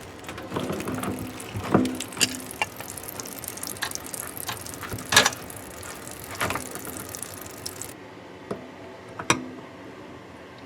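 Tongue-and-groove pliers gripping and turning the metal nut on a Delta two-handle kitchen faucet to free the cartridge: irregular metal clicks and scrapes, with sharper clicks about two, five and nine seconds in.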